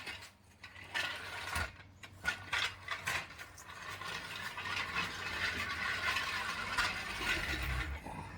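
Floor jack being rolled along, its wheels and frame rattling and clanking with many sharp clicks. It is a noisy jack with hard, non-rubber wheels.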